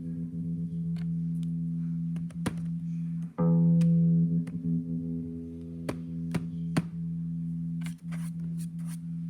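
Sustained electric guitar note through a Line 6 Helix being gated by an optical kill switch. The note drops out abruptly about 3 s in and again near the end, then comes straight back, with choppy stretches and small clicks between.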